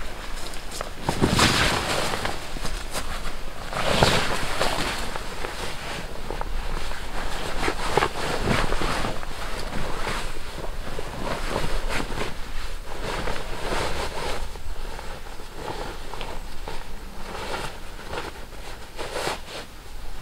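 Heavy canvas of a Polish lavvu rustling and swishing as it is shaken out and draped over a wooden pole frame, with two big swooshes about one and four seconds in, then smaller rustles and taps as it is arranged.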